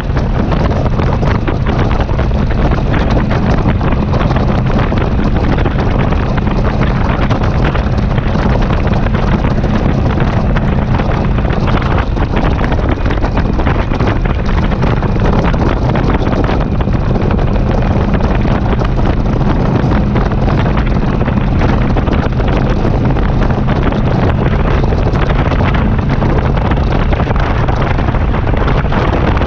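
Heavy wind buffeting on the microphone of a rider-mounted camera at cruising speed, over the steady drone of a touring motorcycle's engine, with no change in pace.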